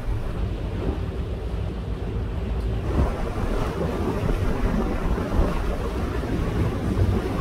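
Water taxi underway at steady cruising speed: a low engine drone with water rushing along the hull and wind on the microphone.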